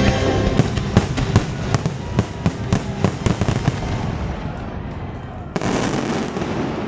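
Aerial fireworks finale: a rapid barrage of shell bursts, many sharp bangs in quick succession over the first few seconds, with show music fading out beneath them. Near the end a sudden steady rush of noise takes over.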